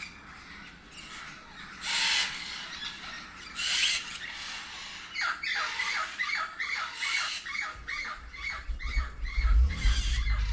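Aviary birds squawking and calling: a couple of harsh squawks, then one bird repeating a quick call about two or three times a second. A low rumble comes in near the end.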